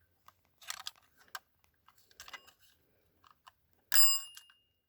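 Wind-up Scotsguard fire alarm bell being handled, with light clicks and taps from its mechanism and lever, then a single metallic strike about four seconds in that rings briefly with a clear high tone.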